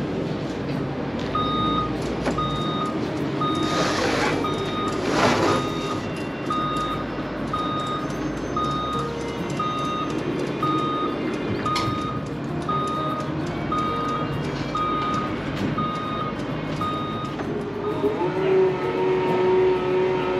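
Forklift's reversing alarm beeping evenly, a little faster than once a second, over the steady rumble of its engine; the beeping stops near the end. Two short hisses come about 4 and 5 seconds in, and near the end a louder engine note comes in and holds as the forklift works.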